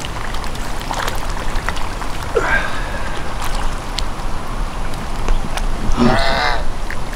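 Ducks calling twice, a short nasal call and then a longer, louder one near the end, over steady background noise.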